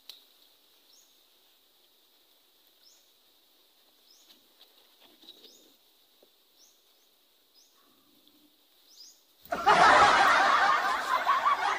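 A bird gives short, high chirps about once a second over a quiet background. About nine and a half seconds in, a much louder rough rushing noise cuts in and takes over.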